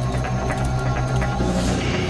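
Background documentary score: sustained low notes under a quick, regular percussion beat, with a brief swelling hiss near the end.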